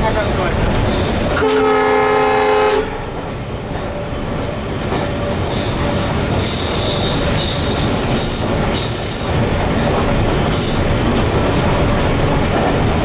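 Locomotive air horn sounds one steady blast of about a second and a half, heard from inside the cab of an EMD GT46MAC (WDG4D) diesel locomotive. Under it and after it, the steady running noise of the locomotive's 16-cylinder two-stroke diesel and its wheels on the rails.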